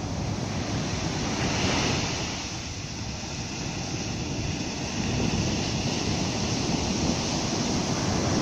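Sea waves breaking and washing up a sandy beach, with wind buffeting the microphone. The surf swells up about a second and a half in, eases, then builds again from about five seconds in.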